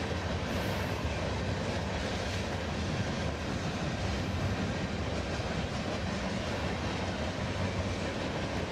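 Long train of loaded open-top coal cars rolling past, a steady rumble of wheels on track.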